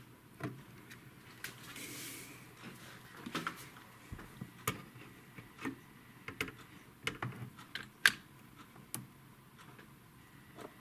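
Hot glue gun being worked over a computer logic board: scattered light clicks and taps of the gun and the plastic case being handled, with a brief soft hiss about two seconds in.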